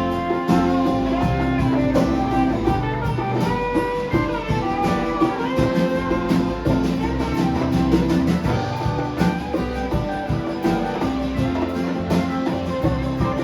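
A band playing live, with guitar to the fore.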